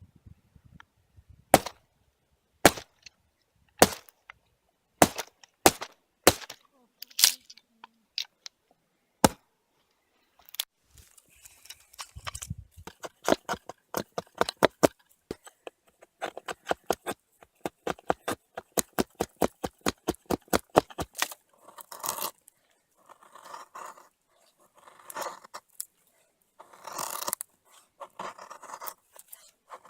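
Hatchet chopping wood, a sharp knock about once a second. Then comes a fast run of light clicks at four or five a second, and near the end several longer scraping strokes.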